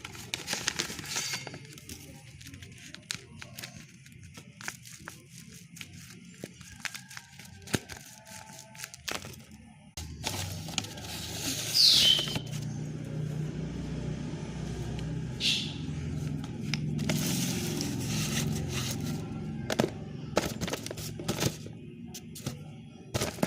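Paper and tape being crinkled, crackled and peeled open from a paper squishy, with many small sharp clicks.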